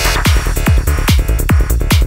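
Electronic dance music with a steady kick drum, a little over two beats a second.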